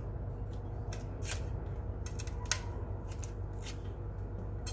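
Irregular short crackles and rustles of fingers peeling the dry, papery skin off garlic cloves, with one sharper crackle about halfway, over a steady low hum.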